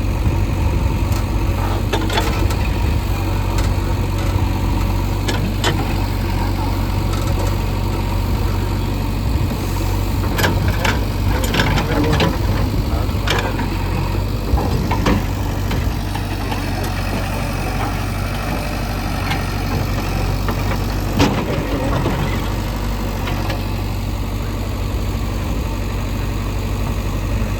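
JCB 3DX backhoe loader's diesel engine running steadily, with occasional sharp knocks and clanks from the machine at work.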